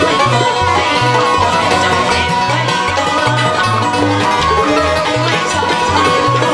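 Live traditional Vietnamese ensemble music, led by plucked string instruments over a repeating low rhythm.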